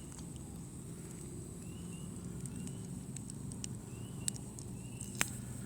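Campfire coals treated with colour-flame powder, crackling with scattered sharp pops over a low steady rumble. A faint short high chirp repeats about every second.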